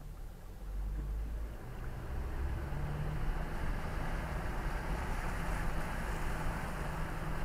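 Four-wheel drive's engine running low and steady as the vehicle wades through deep muddy water, with water rushing and sloshing around it that swells about a second in and keeps on, heard from inside the cab.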